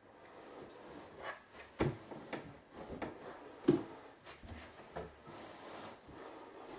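Rustling and scuffing as a gloved hand pushes mineral wool insulation down between wooden floor joists, with a few scattered soft knocks, the loudest a little past the middle.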